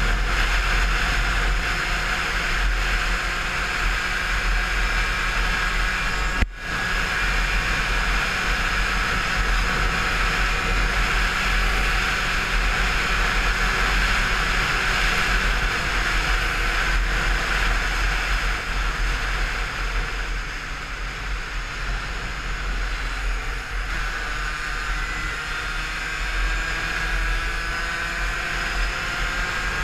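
Derbi Senda 50 SM DRD Racing's 50 cc two-stroke single running at high revs under way, with a steady engine note and heavy low rumble. The sound cuts out for an instant about six seconds in. The note eases off slightly past the two-thirds mark, then climbs again near the end.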